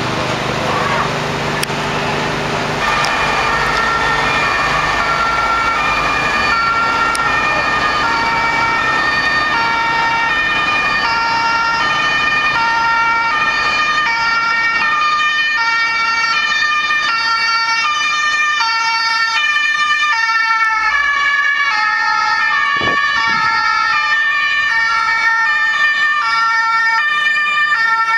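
Two-tone sirens (German Martinshorn) of several emergency vehicles, high and low notes alternating steadily and overlapping out of step with one another. They come in about three seconds in over the steady noise of vehicle engines.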